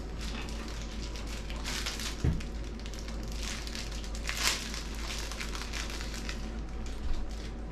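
Small plastic packaging bag crinkling in irregular bursts as it is handled and opened, with one soft thump about two seconds in.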